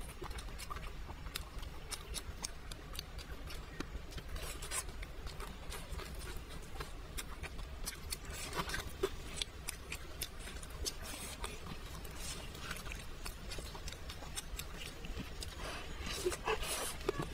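Crispy breaded fried chicken cutlet being torn apart by hand, its crust crackling in many small sharp crunches, then bitten and chewed near the end.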